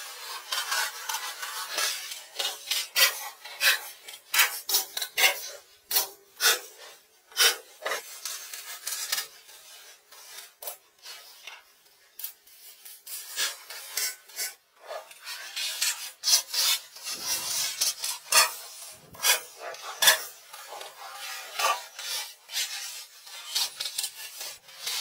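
Irregular rubbing and scraping strokes, some short and sharp, as a large white sheet is pushed and smoothed against wooden plank walls and rafters, with a quieter lull partway through.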